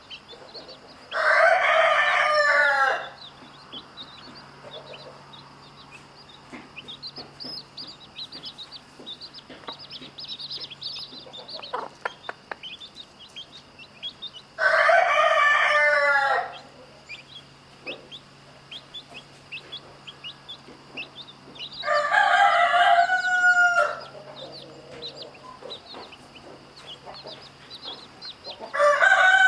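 Rooster crowing four times, each crow about two seconds long, with chicks peeping softly in the gaps between crows.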